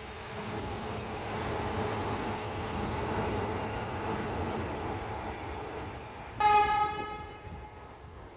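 Adelaide Metro 4000-class electric multiple-unit train running past with a steady rumble of wheels and motors. It gives one short horn blast about six and a half seconds in.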